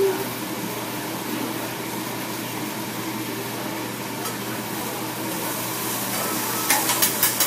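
Food sizzling on a hot teppanyaki griddle, a steady frying hiss over restaurant background noise. Near the end comes a quick run of sharp clicks.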